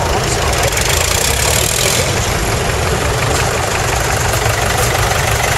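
Several tractor engines idling together: a steady low rumble with no single engine standing out.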